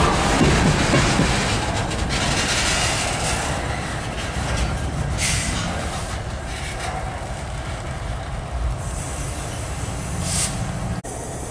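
Diesel freight locomotives rumbling past close by, then the steel wheels of the freight cars rolling slowly along the rails. Two brief high-pitched squeals come from the wheels, about five seconds in and again near the end.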